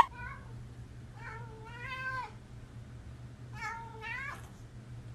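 A cat meowing twice: a long meow about a second in, then a shorter one near four seconds that rises and falls in pitch, over a faint steady low hum.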